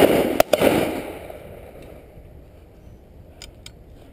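Two shotgun shots about half a second apart at the start, each followed by a rolling echo that dies away over a second or so. A few faint pops sound near the end.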